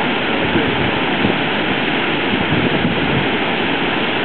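Brooks Falls on the Brooks River: water pouring over the falls in a loud, steady rush.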